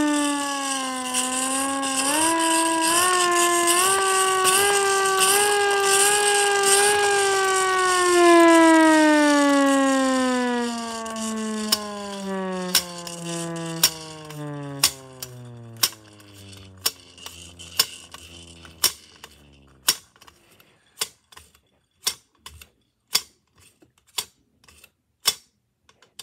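Small hand-crank air raid siren, cranked in stepped pulses so its wail climbs to a peak about eight seconds in, then left to coast down, the pitch falling slowly until it dies out about twenty seconds in. From about eleven seconds on, a sharp click repeats roughly once a second.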